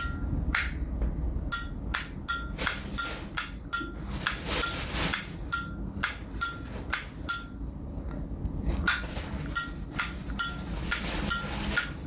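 Zippo lighter lids flicked open and snapped shut over and over, each a sharp metallic click with a brief ring, about two a second. The clicking pauses briefly about eight seconds in.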